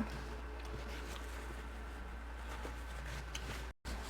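Room tone: a steady low hum with a few faint small clicks; the sound cuts out completely for a moment near the end.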